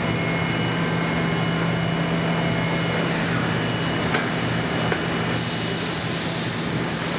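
Haas TM-1 CNC toolroom mill running, a steady whine over a hum, with two light clicks about four and five seconds in.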